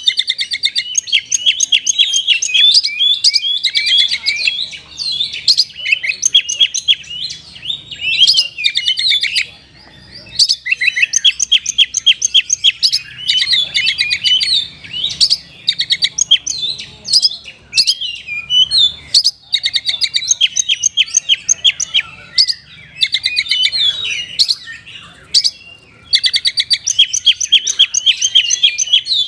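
Oriental magpie-robin (kacer) singing a long, fast run of chirps and rapid trilled phrases, broken by a few short pauses. The song is a filled, mimicking song.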